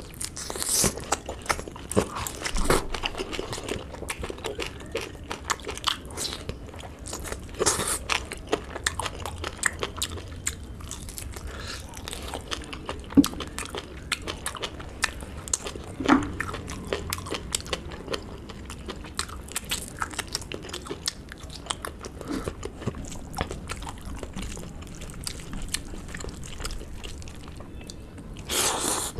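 Close-miked eating of a spicy pork curry meal by hand: biting into and chewing pieces of pork, with many small irregular mouth clicks and a few louder bites scattered through.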